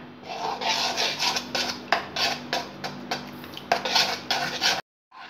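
Stirring a thin wheat-flour and besan batter in a metal bowl: repeated wet scrapes and clinks of the stirring hand and utensil against the bowl, a few a second. The sound cuts out briefly near the end.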